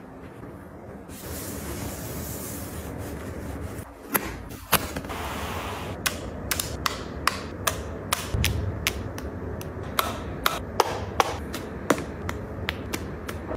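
Objects being handled and set down: a steady hiss for the first few seconds, then a run of sharp, irregular clicks and taps, one or two a second.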